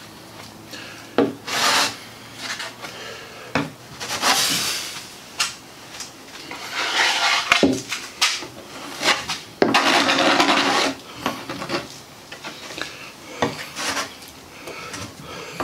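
Hand-sanding strokes across cured Total Fair fairing compound on a plywood boat bow: irregular rasping strokes, some short, some a second or more long.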